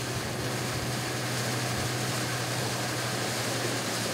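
Amphibious ferry boat's engine running steadily under way: a low, even drone with a constant hiss of water and wind over it.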